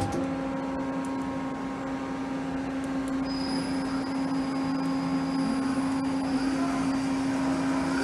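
Mori Seiki SL-35 CNC lathe running under power: a steady machine hum, with a thin high whine coming in about three seconds in.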